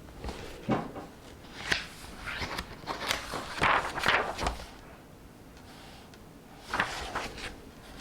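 Paper pages of a book being turned, rustling and flapping in a quick run of strokes over the first half, then another short rustle near the end.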